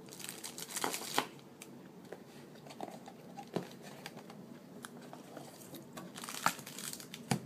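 Handling noise: scattered crinkling rustles and light clicks of objects being handled, busiest briefly near the start and again near the end.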